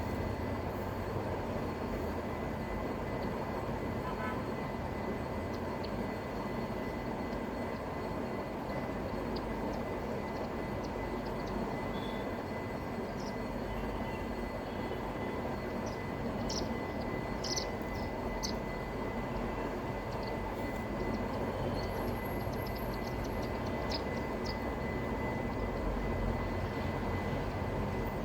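Steady rushing background noise throughout, with a few faint, short high chirps from house sparrows, mostly around the middle.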